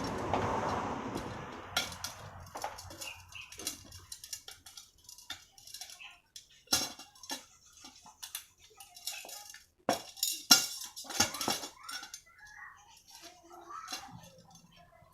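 Irregular light metal clinks and taps of wire spokes being laced into a motorcycle wheel by hand, with a brief rush of noise in the first couple of seconds.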